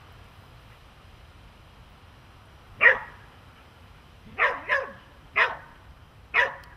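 A dog barking: five short, sharp barks, the first about three seconds in, then a quick pair and two more spaced out toward the end.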